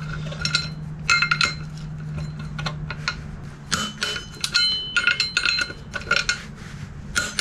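Ratcheting torque wrench clicking in short bursts while the rear sprocket nuts are tightened one after another, with brief metallic clinks that ring for a moment.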